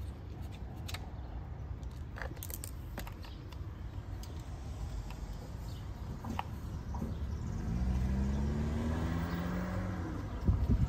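Small clicks and scrapes of an inflator hose's air chuck being fitted onto a car tyre's valve stem, over a low steady hum. From about eight seconds in, a passing vehicle's engine drone rises slowly in pitch and fades, and a few louder knocks come near the end.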